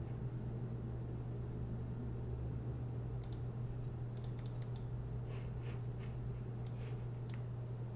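Computer keyboard keys being typed: a few scattered key presses, then a quick run of clicks, then more from about three seconds in until near the end. Under them runs a steady low hum.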